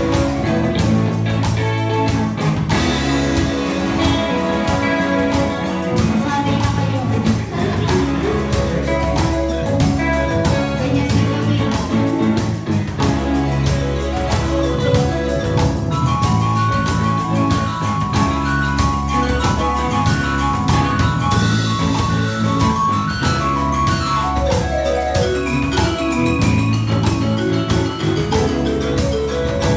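Live band playing a song, with the drums keeping a steady beat under bass and held melody notes.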